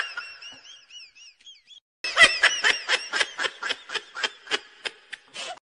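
High-pitched giggling laughter: a short squeaky, wavering trill, a brief pause, then a quick run of 'ha-ha' pulses at about four a second that slows and fades out.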